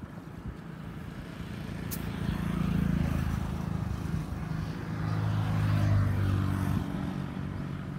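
An engine running with a low hum that swells about three seconds in and again around six seconds.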